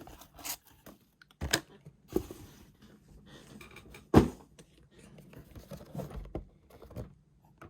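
Packaging being handled: an irregular string of taps, clicks and light rustles, with the sharpest knock about four seconds in.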